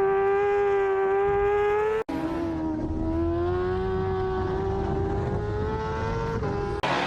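Racing motorcycle engine held at high revs, its note climbing slowly as it pulls. About two seconds in, the sound cuts off abruptly and comes back at a lower pitch, then climbs again. A brief rush of noise comes near the end.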